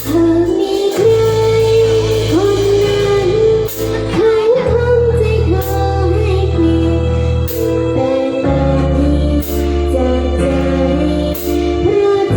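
Live band playing a song: a female voice sings over electric keyboard and bass, with a cymbal struck at a regular beat.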